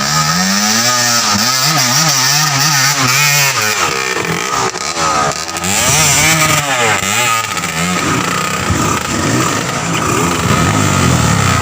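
Dirt bike engine revving up and down over and over, its pitch rising and falling about once a second, with a more ragged stretch in the last few seconds.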